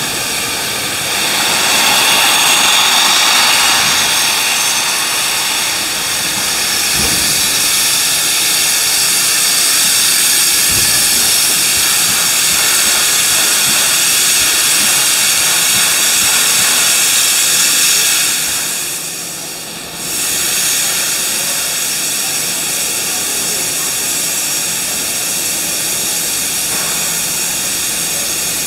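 Steam locomotive 3801, a streamlined NSW 38 class Pacific, letting off a loud, steady hiss of steam. The hiss dips briefly about two-thirds of the way through, then comes straight back.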